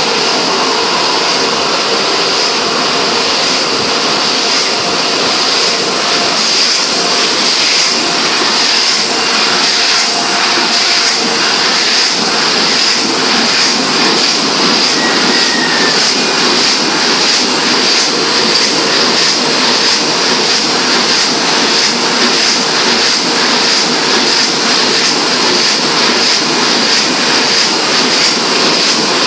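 Heidelberg Speedmaster 102 SP six-colour sheetfed offset press running: a loud, steady mechanical din with a high hiss over it.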